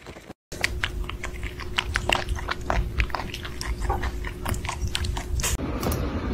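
Young animal suckling at its mother, with rapid wet smacking and clicking sounds. The smacking stops about five and a half seconds in.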